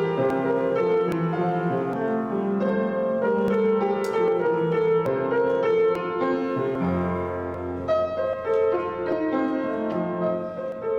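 Keyboard instrument playing a slow postlude of held chords after the benediction, with a deep bass note joining about seven seconds in.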